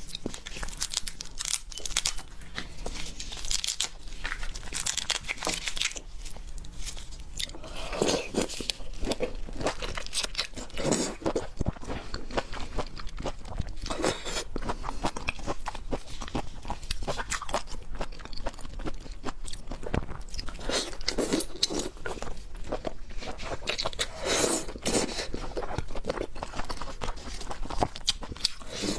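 Close-miked crunching, biting and chewing while eating red devil shrimp, a steady run of irregular crackly crunches.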